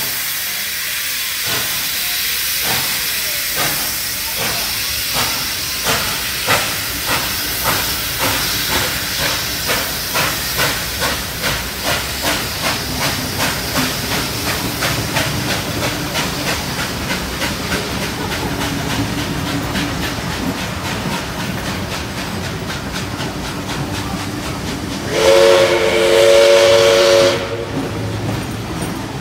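Steam locomotive pulling a train away: hissing steam and exhaust chuffs that quicken as it gathers speed, then fade into the steady rolling of the carriages. Near the end a loud steam whistle sounds a chord for about two seconds.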